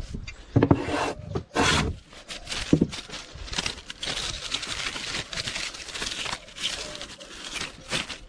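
Work on wood: a few knocks in the first couple of seconds, then a long stretch of scratchy rubbing on wood.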